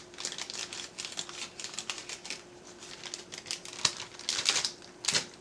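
Small plastic snack bag crinkling and clicking in the hands as a folded damp paper towel is pushed into it. The crinkling comes as a rapid run of small clicks, loudest about four to five seconds in, over a faint steady hum.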